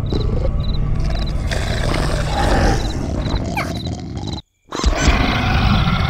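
A low, rasping, growl-like rumble in a cartoon soundtrack, with short chirps repeating in the first second and a half. About four and a half seconds in, everything cuts out abruptly for a moment, then a louder burst comes in.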